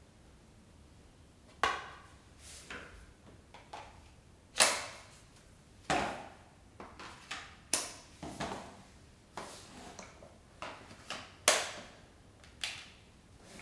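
Hard plastic clicks and knocks as a Kärcher steam cleaner's floor nozzle and extension tubes are handled and snapped together, about a dozen sharp snaps, each with a short ringing tail, the three loudest a few seconds apart.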